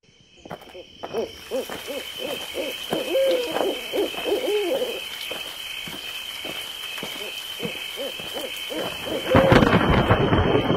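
Owl hooting in quick repeated calls over a steady high-pitched drone, an eerie night-time ambience. About nine seconds in, a louder rushing noise swells up over it.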